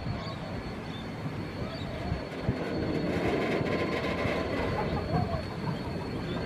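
Steam locomotive and tank wagon rolling slowly over yard track: a low rumble with scattered wheel and coupling knocks, growing louder about two seconds in as the train draws closer.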